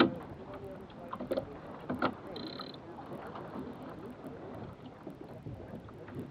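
Water washing along the hull of a small sailboat moving slowly, with a few sharp knocks from the boat and crew, the loudest right at the start and others about one and two seconds in. A brief high tone comes about two and a half seconds in.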